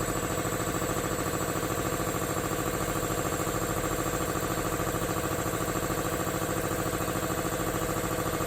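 Industrial air compressor with a CA2 series pump running steadily, a fast, even pulsing over a constant hum.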